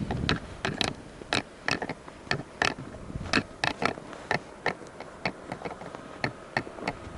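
An irregular series of short, sharp clicks or crunches, about two to three a second.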